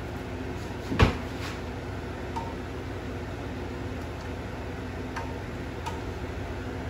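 Kitchen utensils clattering in a drawer, with one sharp clack about a second in, then a few light taps of a utensil stirring shrimp in a skillet, over a steady low hum.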